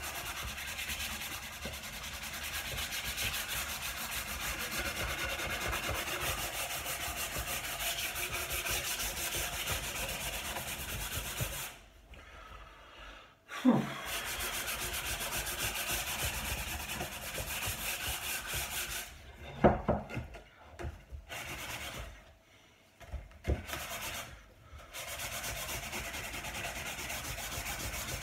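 Sanding the wood of an old dining table: a steady scratching rub that stops briefly about twelve seconds in and stops and starts several times a few seconds later, with a few knocks in the breaks.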